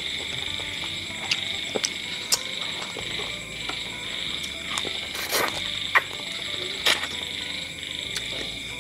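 A steady high-pitched chorus of calling animals runs throughout. Over it are close, wet mouth sounds of eating chicken: sucking, chewing and several sharp smacks and clicks.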